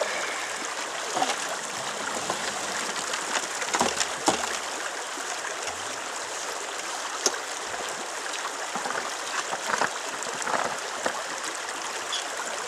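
Shallow rocky river running steadily over stones, with scattered short knocks and splashes.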